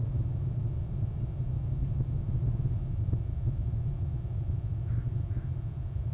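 Steady low rumble of outdoor background noise, with two faint short calls about five seconds in.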